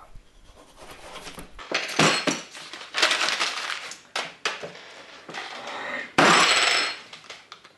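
Sheets of paper being crumpled by hand in several noisy bursts of half a second to a second each, the last and loudest near the end.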